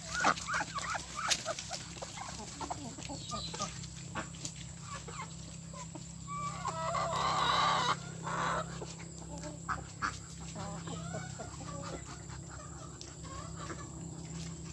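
Chickens clucking with short scattered calls, and a rooster crowing once about halfway through, the loudest sound.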